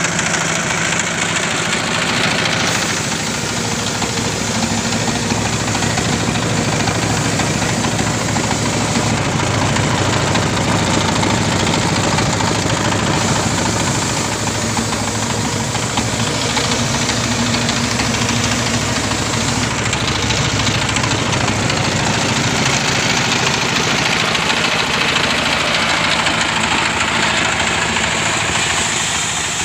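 Horizontal single-cylinder diesel engine of a homemade multi-purpose vehicle running loud and steady with a knocking beat.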